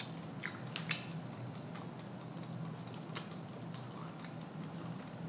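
A person chewing food, with a few short, sharp mouth clicks over a steady low hum.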